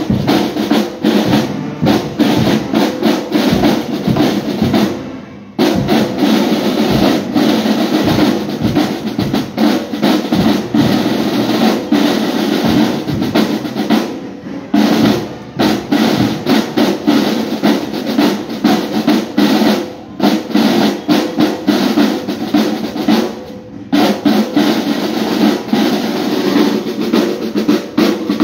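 Marching band drum line playing snare and bass drums in a fast, dense beat, dropping off briefly a few times.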